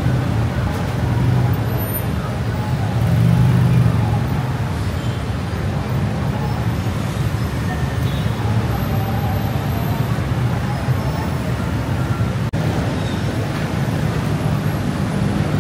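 Heavy road traffic at a busy city junction: a steady, low hum of bus, car and motorbike engines, swelling briefly a few seconds in.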